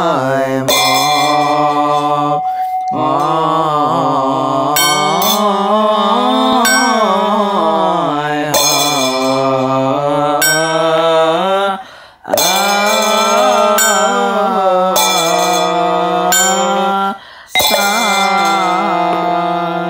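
Chinese Mahayana Buddhist liturgical chanting: a slow, drawn-out sung melody with long held and gliding notes, punctuated every second or two by ringing percussion strikes. The chant breaks off briefly twice in the second half, for breaths between phrases.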